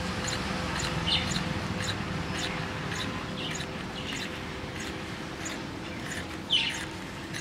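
Homemade battery-powered solenoid engine running: a regular sharp chirping click about twice a second, over a faint steady hum, with one louder click near the end.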